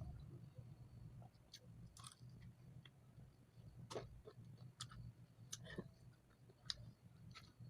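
Faint eating sounds: a dozen or so irregular small clicks and smacks of chewing, over a low steady hum.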